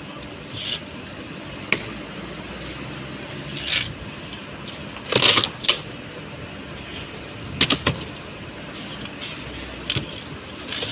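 A cardboard box being opened: packing tape slit and torn with a knife and the cardboard flaps handled, giving scattered sharp cracks, rips and scrapes, loudest about five seconds in and again near eight seconds.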